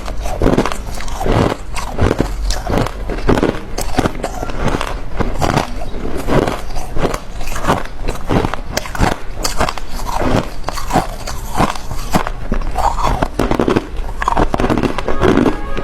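Close, loud chewing and biting of something hard and crunchy, with crisp crunches coming irregularly several times a second.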